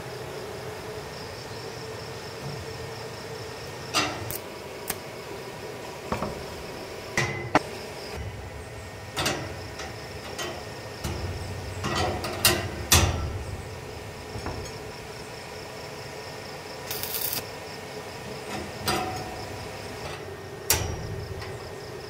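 Irregular hammer blows and knocks on metal, a dozen or so spread out with gaps of a second or more, one of them ringing briefly, over a steady background hum and insects chirring.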